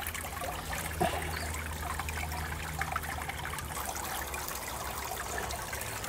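Water trickling and dribbling off the tiers of a small cascade waterfall into a backyard fish pond, a steady splashing patter.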